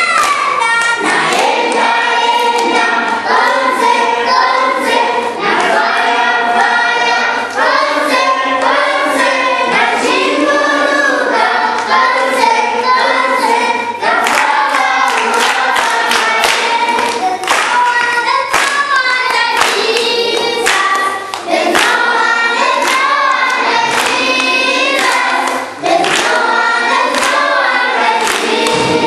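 A group of schoolchildren singing together as a choir, with hand clapping along.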